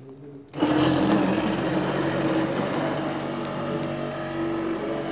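The X-Y table's electric drive starts suddenly about half a second in and runs steadily, a whine over a loud noisy rattle.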